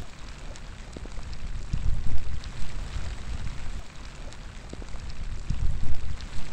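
Steady rain falling outdoors, with many individual drops striking close by. Gusts of wind rumble in twice, about two seconds in and again near the end.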